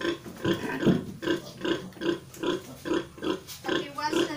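Nursing sow grunting in a steady rhythm, about two to three short grunts a second, while her piglets suckle: the sow's nursing call.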